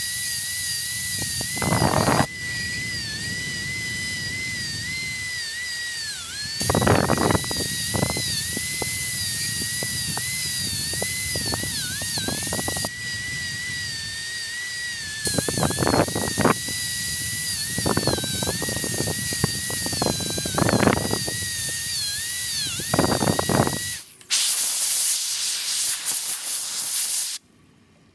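High-speed dental handpiece whining at a steady high pitch as its bur cuts a Class I cavity into a plastic typodont molar. The pitch sags each time the bur bites in, with bursts of grinding and a hiss of water spray. The whine stops about 24 s in and a few seconds of hiss follow.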